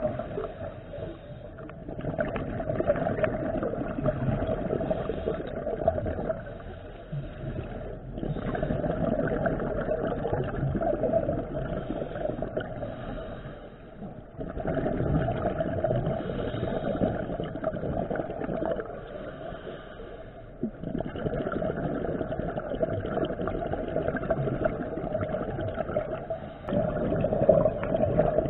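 Scuba diver's regulator breathing heard underwater: loud stretches of bubbling exhaust alternate with short quieter gaps, repeating about every six seconds.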